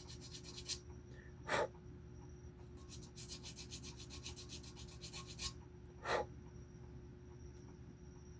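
Quick, even back-and-forth strokes of a hand file rasping the hardened black super glue patch on a tobacco pipe stem's bitten-off button. The strokes come in two spells: one at the start, and one from about three seconds to five and a half seconds in. Two short, louder noises come about one and a half seconds and six seconds in.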